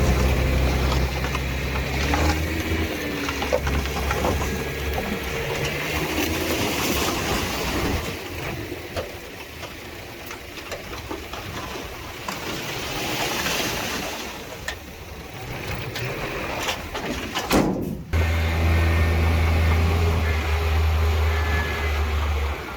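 Diesel engines of heavy earthmoving machinery running. A strong, steady low engine note at the start gives way to a quieter, rougher stretch, and the low note returns abruptly about eighteen seconds in.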